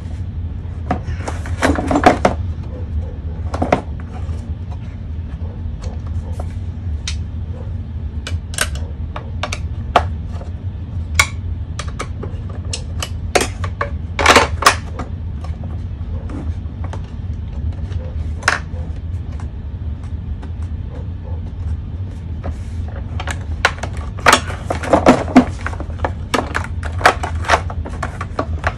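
Hand tools and metal parts clicking and clattering as the flexible-shaft drive inside the plastic drum of a Ridgid K9-204 drain cleaning machine is taken apart, with louder bursts of clatter about two seconds in, midway and near the end. A steady low hum runs underneath.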